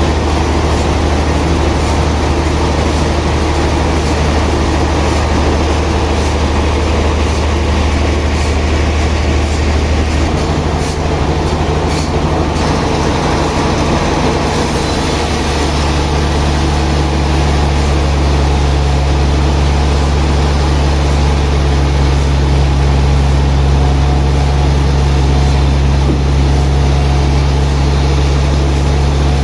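Heavy sawmill machinery running with a loud, steady low drone; its hum shifts in pitch about ten seconds in and again a few seconds later, with a few faint clicks along the way.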